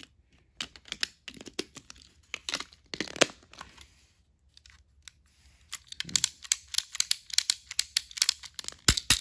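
Irregular clicks and rustles of hands handling a small plastic toy train engine, switching it and turning it over, with a few sharper knocks near the end as it is tapped to get the motor going.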